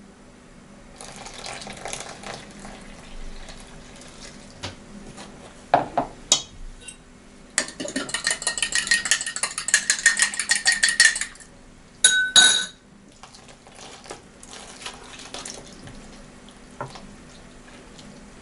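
Kitchen utensils clinking and scraping against dishes while pelmeni are prepared. In the middle comes a fast run of clinks, a utensil stirring or beating in a bowl for a few seconds, and a short clatter of dishes follows.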